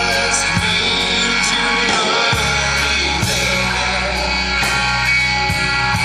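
Live blues-rock band playing: electric guitar over bass guitar and drums.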